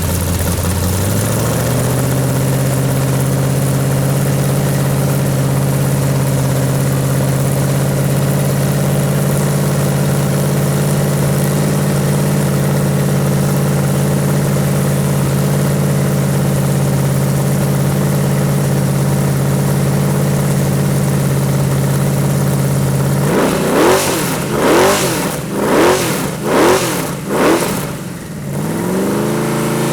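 383 V8 engine on a run stand, warming up: it steps up to a steady fast idle about a second in, then is revved sharply five times near the end and settles back to idle.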